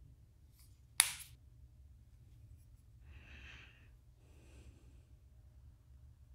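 One sharp plastic click about a second in as a small squeeze bottle of airbrush paint is handled, most like its flip-top cap snapping shut. Then two soft breaths follow, about a second apart.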